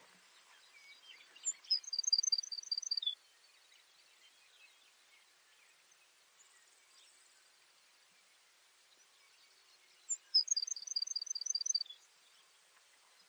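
Baird's sparrow singing twice, about eight seconds apart: each song opens with a thin high note, then a quick trill of about eight repeated notes, ending on a lower note.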